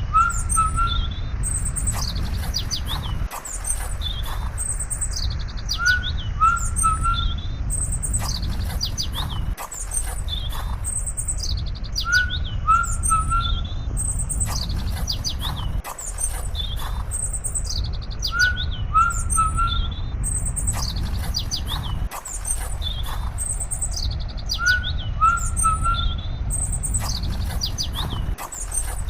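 Birds chirping and calling over a steady low rumble, with a short falling three-note call recurring; the same few-second stretch of sound repeats again and again, as in a looped nature soundtrack.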